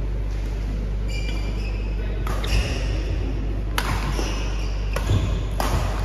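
Badminton doubles rally: racquets strike the shuttlecock three times, about a second and a half apart, with shoe squeaks on the court floor over a steady low hum.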